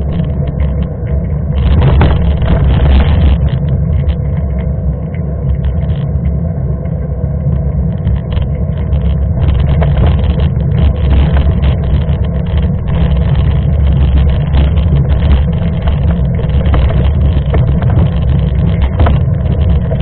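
Steady low rumble of wind on the microphone and a mountain bike's knobby tyres rolling on asphalt, with frequent crackles throughout; it gets a little louder about two seconds in.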